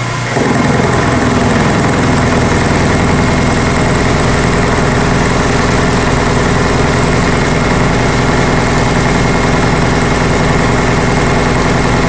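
Vertical knee mill cutting 3/4-inch steel key stock. The milling cutter is taking a heavy pass with a loud, steady grinding run that jumps up about half a second in, while a tone sinks in pitch over the next second or so as the spindle takes the load. The mill is labouring under the cut, which the machinist calls the mill not liking it.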